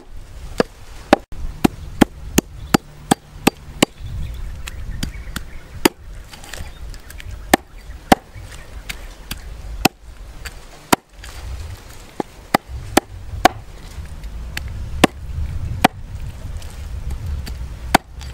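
A cleaver chopping through a snake's body onto a round wooden chopping block: a series of sharp knocks, about three a second for the first four seconds, then fewer and more spread out.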